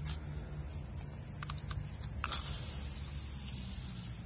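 Handling noise from a phone worn against clothing: a steady low rumble with a few faint clicks.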